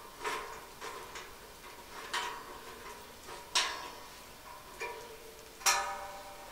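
Hex key clicking and clinking against a screw and the stainless-steel heat shield of a fire bowl as the screw is turned. Each knock is followed by a short metallic ring. There are about six knocks, the loudest near the end.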